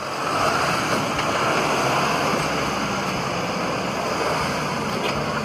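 Chevrolet S10 pickup's engine running steadily at low revs as it crawls through deep mud, under a constant rushing noise.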